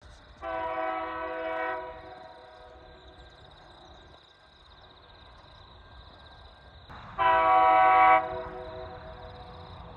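TasRail TR class diesel locomotive sounding its horn twice: a blast of about a second and a half starting about half a second in, then a louder, shorter blast about seven seconds in. A faint steady rumble of the train runs between the blasts.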